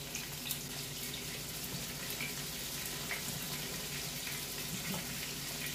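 Pot of chickpea rice at a rolling boil, bubbling steadily, with salmon frying in a pan alongside and a few faint ticks and pops.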